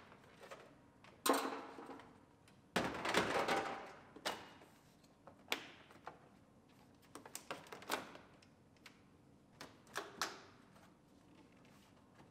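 Irregular clicks, clunks and rattles of hand tools and plastic trim as the dashboard of a 2004 Chevrolet Silverado cab is unbolted and its vents pried out, with a sharp clatter about a second in and a longer, louder one about three seconds in.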